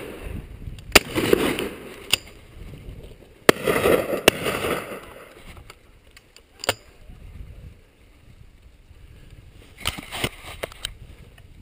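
Indistinct voices in short bursts, with several sharp clicks or knocks, the loudest about a second in, over a low rumble.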